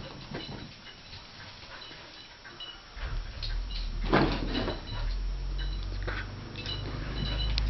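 A dog's paws scrambling and thudding on carpet as it chases a laser dot, with a sharp knock about four seconds in. From about three seconds in a low rumble runs underneath: handling noise from the hand-held camera being swung about.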